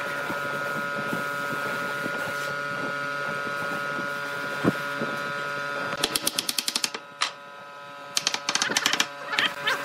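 Wooden mallet tapping rapidly on a wooden spoked wheel to seat the spokes into the hub and rim: quick runs of light knocks, about a dozen a second, from about six seconds in and again near the end. Before that a steady hum, with a single knock about halfway through.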